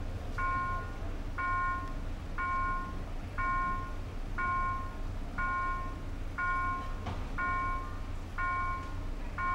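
Railway level crossing warning bell sounding a steady repeated tone, about half a second on and half off, once a second, warning that the barriers are down and a train is coming.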